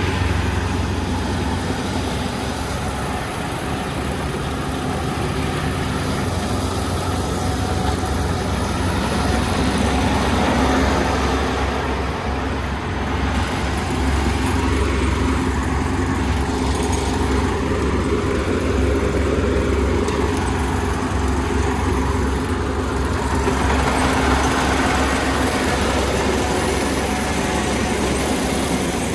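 Kubota ER470 combine harvester running steadily, its engine and threshing machinery giving a loud, continuous drone.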